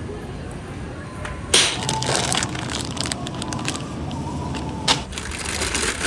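Groceries being handled: a sharp knock about one and a half seconds in, followed by crackling and rustling of plastic packaging, with further sharp clicks near the end.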